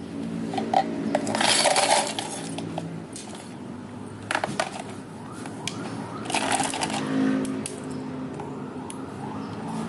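Drink-making handling sounds: sharp clinks of glassware and utensils, with two longer rattling bursts about a second in and again past the middle.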